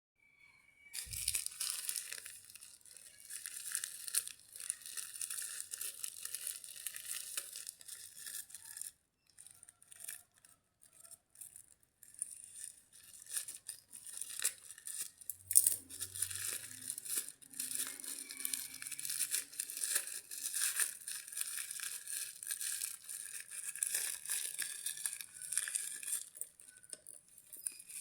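Plastic packaging crinkling and tearing as a parcel is unpacked by hand, with dense rustling and small clicks and a short lull about a third of the way through.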